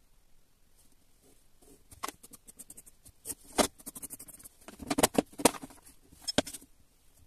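Pencil scratching marking lines onto a wooden block, mixed with clicks and taps of a steel ruler and metal square being set down and shifted on the wood. Short scratches and knocks begin about two seconds in, with a few louder knocks in the second half.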